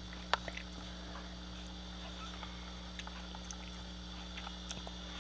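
Quiet room tone with a steady low hum, broken by one sharp click about a third of a second in and a few faint ticks later.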